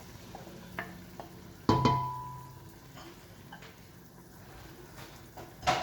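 Cooking pot and utensils: vermicelli being stirred into a pot with faint sizzling and light clicks. A sharp metallic clang about two seconds in rings briefly, and another knock comes near the end.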